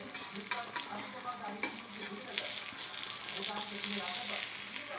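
Egg omelette with onion and chili frying in a pan, sizzling with scattered crackles and pops; the sizzle swells a little about three and a half seconds in.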